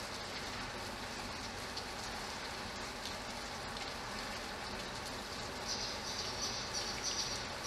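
Steady rain falling, with water pouring and dripping off a roof edge. About three-quarters of the way in, a high, shrill sound joins it, coming and going in short spells.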